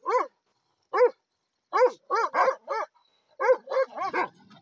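Bhotiya dog barking in quick runs of two to four sharp barks, about a dozen in all, at another dog it is facing off with.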